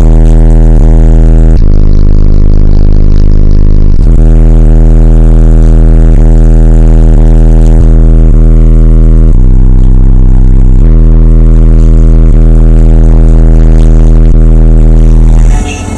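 Deep bass music played at extreme volume through a GMC Yukon's eight 18-inch AudioQue subwoofers, heard as long droning bass notes that step to a new pitch several times. It is loud enough that the recording overloads and distorts.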